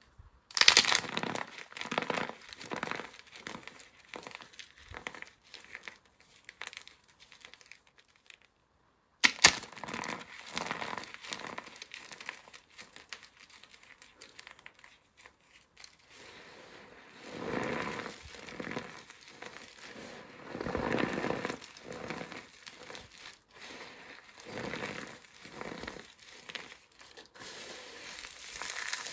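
Hands crushing starch-packed soap, with crisp crunching and crackling in quick runs. About nine seconds in there is a short pause and a sharp snap. Later comes slower squeezing and crunching in swells as handfuls of crumbled soap and starch are kneaded together.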